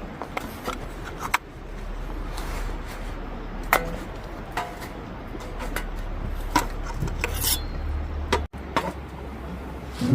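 Cookware and utensils being handled: scattered light clinks and knocks, a dozen or so at irregular intervals, over a low steady background.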